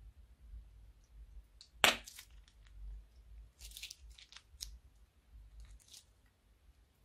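Plastic piping bag crinkling and crackling as it is squeezed, in short clusters, with one sharp click about two seconds in.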